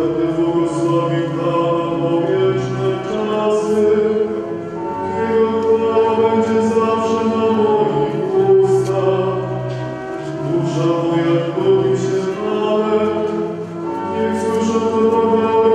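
Choir singing a slow hymn with long held notes.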